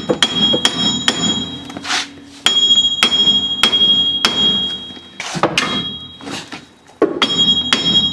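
Hammer blows on steel, in runs of quick strikes about two a second, each leaving a high metallic ring, as the damaged front axle shaft of a 1999 Jeep Cherokee is knocked apart.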